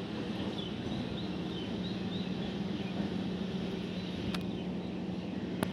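LHB passenger coaches of an express train rolling slowly past on the rails: a steady rumble with a low hum, and two sharp clicks near the end.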